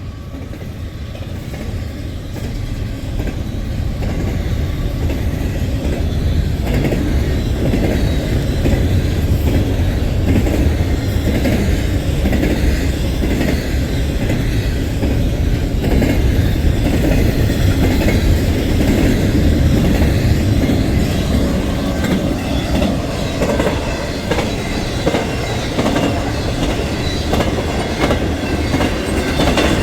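Intermodal freight train rolling past, a steady heavy rumble of cars and wheels with rapid clickety-clack over the rail joints. It grows louder over the first several seconds and then holds.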